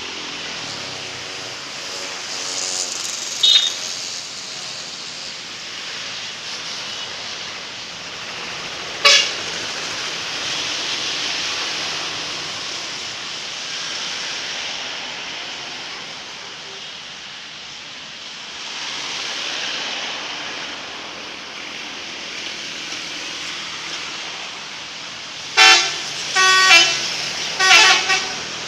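Road traffic passing, with short horn toots, then a bus's multi-tone 'telolet' horn sounding three loud blasts close together near the end.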